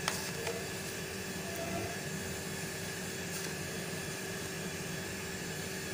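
Steady hiss of a large aluminium pot of rice and water boiling on a gas stove.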